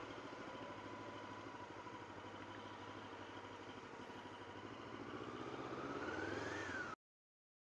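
1999 Honda CB500S parallel-twin engine running at low speed as the motorcycle filters between queued cars, its pitch rising and falling again near the end as the revs build. The sound then cuts out completely.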